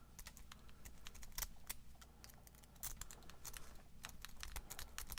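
A Sparrows rake pick being worked in and out of a Master Lock No. 5 padlock's keyway: faint, quick, irregular metallic clicks as it scrubs across the pin tumblers.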